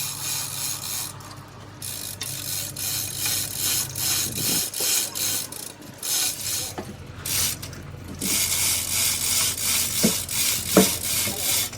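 Rhythmic rasping strokes of a hand tool scraping back and forth, about two a second, merging into a continuous rasp about eight seconds in, with two sharp knocks near the end.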